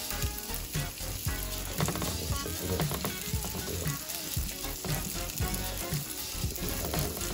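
Pancake batter sizzling in melted butter in a stainless steel frying pan, a steady frying hiss. A low beat about twice a second runs underneath.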